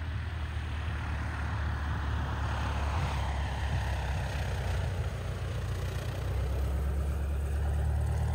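Piston engine and propeller of a Cub-type light plane flying low past, a steady drone whose higher tone falls slightly from about three seconds in as it passes and moves away.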